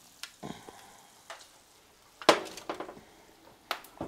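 Metal clanks and rattles of a foil-lined sheet pan being slid off an oven rack and set down on a stovetop, with the oven door being shut: about seven short knocks, the loudest a little past the middle.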